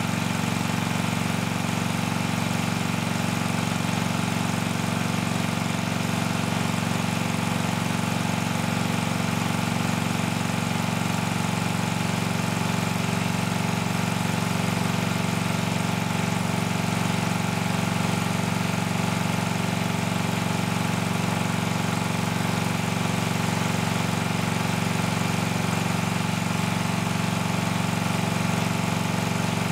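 Pump running steadily, pushing liquid through a Liquid Controls M-7-1 positive-displacement flow meter in series with a master meter during a calibration run. It is a constant hum that does not change in pitch or level.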